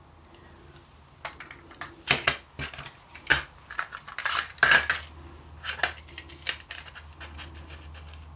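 Hard plastic MiniDisc cartridges and a clear plastic disc case clicking and clattering as they are handled: an irregular run of sharp clicks over a few seconds, loudest in the middle, then dying away.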